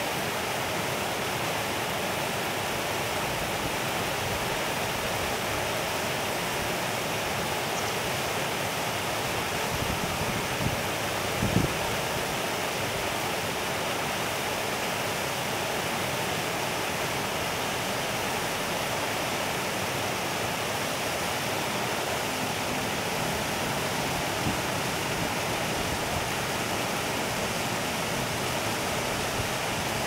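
Steady rushing of a small river's water spilling over a low weir and flowing on, with a brief low thump about eleven seconds in.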